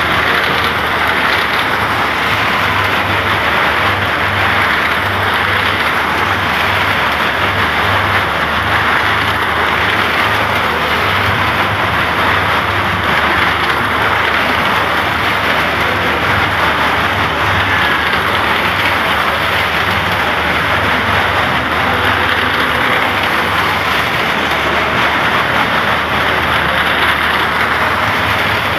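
Small cars circling the vertical wall of a well-of-death drum, their engines running in a loud, steady din.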